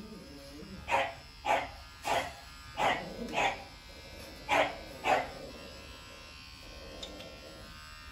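A dog barking about seven times, mostly in pairs, over the steady buzz of electric pet clippers shaving the fur between a dog's toes. The barking stops a little past halfway and the clippers run on alone.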